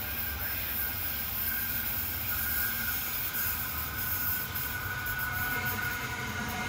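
Queensland Rail IMU three-car electric multiple unit approaching, its running noise slowly growing louder, with a faint steady high whine over a low rumble.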